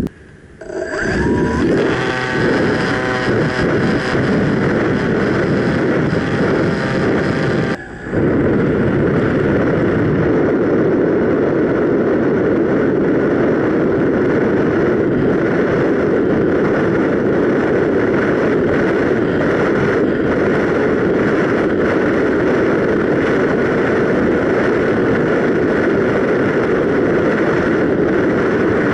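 ParkZone Radian Pro's electric motor and propeller whining as the plane climbs, starting about a second in with a rise in pitch. Near eight seconds in the whine stops after a brief dip, leaving steady wind rushing over the onboard camera as the glider flies on.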